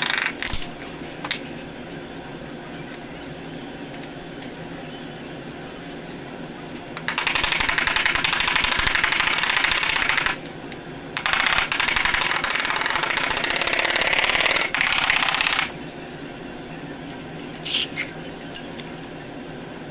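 A power tool runs in two bursts of about three and four seconds, with a fast rattling buzz, over a steady background hum.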